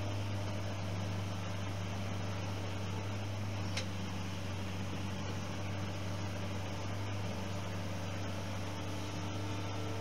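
New Holland skid steer's diesel engine running at a steady drone while it works its stump puller to lift a stump out of the ground, with one short sharp click about four seconds in.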